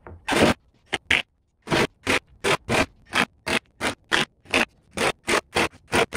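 Cordless driver sinking screws into stacked MDF layers: a rapid string of short, harsh bursts, about three a second, with silence between them.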